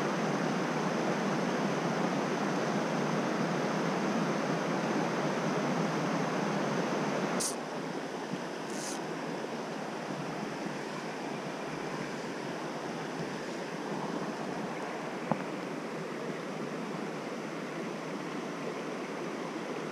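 Steady rush of a small trout stream flowing over rocks, a little quieter from about seven and a half seconds in. A couple of faint clicks just after the change, and a small tick about fifteen seconds in.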